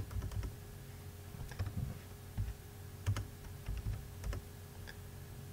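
Typing on a computer keyboard: scattered keystrokes in small clusters with pauses between, as a spreadsheet formula is entered, over a faint steady low hum.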